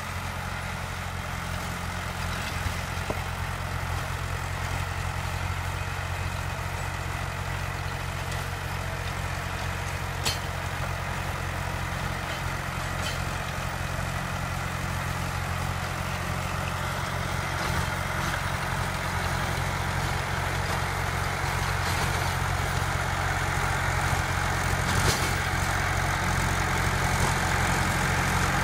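Swaraj 978 FE tractor's diesel engine running steadily under load while pulling a rotary tiller (rotavator) through soil. It gets gradually louder as the tractor comes closer, with a couple of brief sharp clicks.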